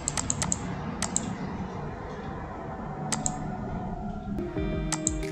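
Computer mouse clicking on toolbar buttons: a quick run of four or five clicks at the start, a pair about a second in, one more after three seconds and a double click near the end. Background music plays under the clicks.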